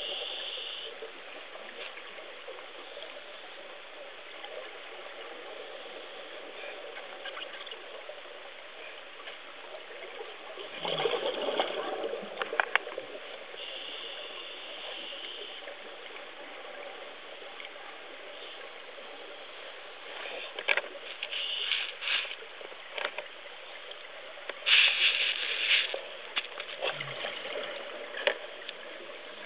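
Underwater ambience with scuba divers breathing through regulators: hissing inhalations and noisy rushes of exhaled bubbles, loudest about a third of the way in and again near the end, with scattered sharp clicks.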